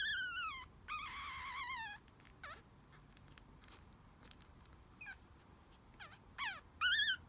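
A 10-day-old teacup Chihuahua puppy whimpering in high, wavering squeaks. Two longer cries falling in pitch open it, then short squeaks follow here and there, coming faster near the end.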